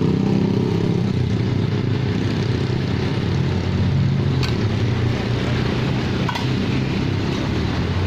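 High-pressure LPG gas burner running with a steady low roar under a boiling pot. Two short clicks come in the second half.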